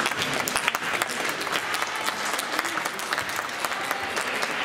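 Spectators applauding: a dense, steady patter of many hand claps.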